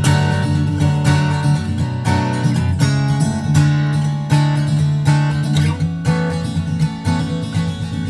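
Background music: acoustic guitar strummed and plucked in a steady rhythm.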